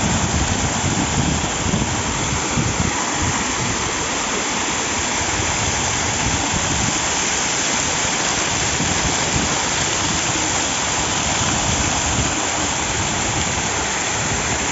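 Waterfall: a steady, loud rush of falling water with an uneven low churning beneath it.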